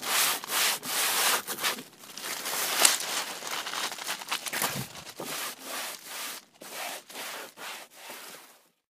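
Repeated rubbing strokes, about two to three a second, growing fainter in the second half and stopping suddenly near the end.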